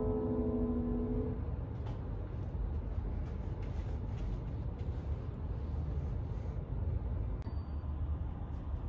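Grand piano's final chord ringing out and dying away about a second and a half in, followed by a low steady room rumble with a few faint knocks.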